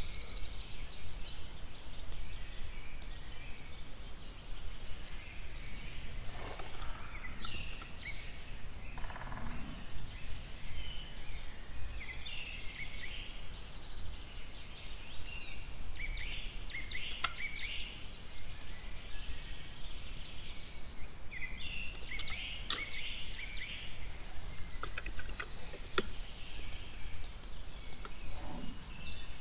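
Steady background hiss and low hum with scattered faint high-pitched chirps, and a few sharp clicks.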